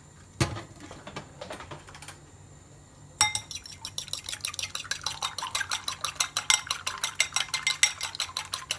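A raw egg being beaten with a metal fork in a ceramic bowl: quick, even clinks of the fork against the bowl, about six a second, starting about three seconds in. Before that, a single knock about half a second in and a few light taps.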